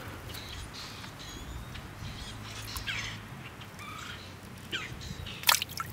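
Short, faint bird chirps over a low steady background, followed near the end by a few sharp clicks.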